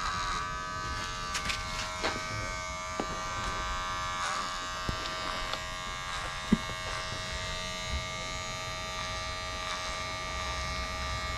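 Electric hair clippers buzzing steadily as they cut hair, with a few light clicks and one sharper click about six and a half seconds in.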